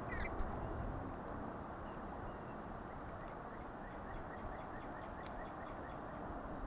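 Steady outdoor background rush with faint, short bird chirps scattered through, a few of them high, thin downward notes.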